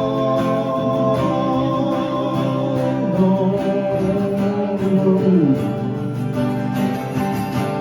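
Country ballad music: acoustic guitar with long held notes, one sliding down in pitch about five and a half seconds in.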